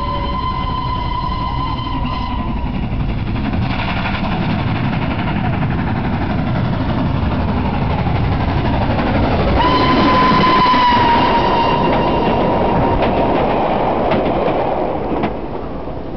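Southern Railway N15 'King Arthur' class 4-6-0 steam locomotive 30777 Sir Lamiel running hard through a station with a train. Its whistle sounds at the start, stops about 2 s in, and sounds again about ten seconds in, bending up at first, as the engine passes at its loudest. The rumble of the train rolling by follows, then fades.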